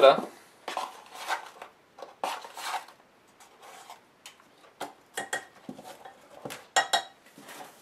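A ring of plastic measuring spoons clicking and clattering, with short scrapes and rustles, as baking soda is scooped from its cardboard box and tipped into a ceramic mixing bowl. Scattered sharp clicks, the loudest near the end.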